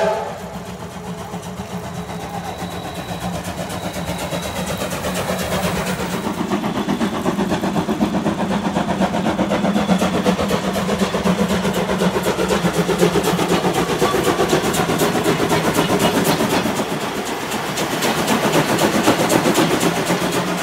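Train hauled by the CT273 steam locomotive running past: a steady rumble with a fast, even beat that grows louder toward the middle, dips briefly near the end and then picks up again.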